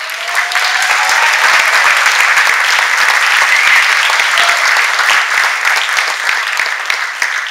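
Audience applauding, loud and steady, the dense patter of many hands clapping, with one rising whoop over it in the first second or so.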